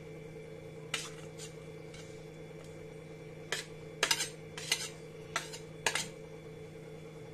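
Steel spoon clinking and scraping against a stainless steel plate and mixer-grinder jar as cooked vegetables are spooned in: about ten scattered clinks, busier in the second half, over a steady hum.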